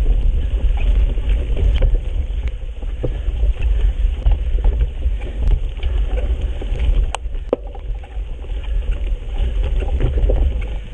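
Mountain bike riding a trail, heard as a heavy low rumble of wind and jostling on the camera, with scattered clicks and rattles from the bike and trail.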